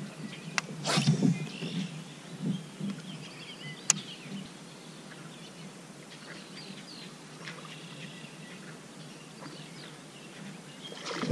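Faint bird calls and chirps over quiet outdoor ambience, with a few light knocks in the first few seconds and a single sharp click about four seconds in.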